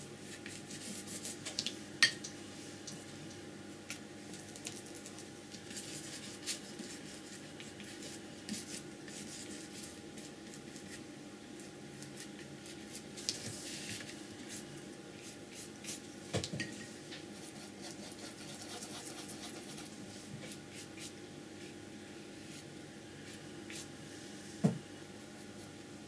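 Flat brush scrubbing acrylic paint onto heavy paper: a soft, scratchy rubbing made of many small strokes. A few sharp taps stand out, the loudest about two seconds in and near the end.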